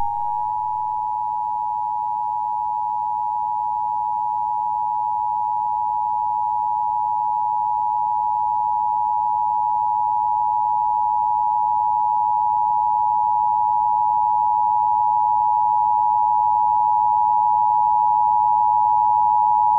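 Emergency Alert System attention signal: a steady two-tone alarm of two close, high pitches sounded together and held unbroken, slowly growing a little louder.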